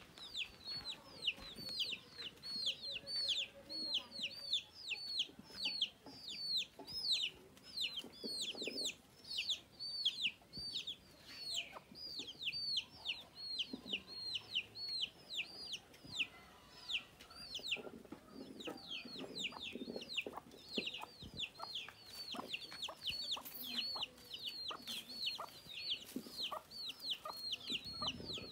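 Chicks peeping without a break, a steady stream of short, high, falling peeps about three a second, with a mother hen's low clucks now and then underneath.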